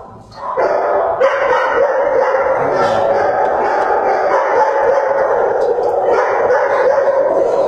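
Many dogs barking at once in shelter kennels, a steady din that starts about half a second in.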